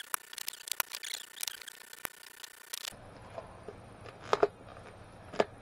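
A quick run of small, irregular clicks and light rubbing. About three seconds in the background changes suddenly, and two sharper knocks follow, a second or so apart.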